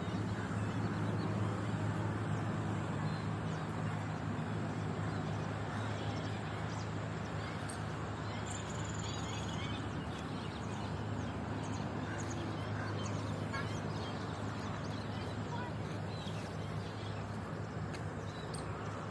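Outdoor garden ambience: a steady low drone of road traffic, with scattered small bird chirps over it.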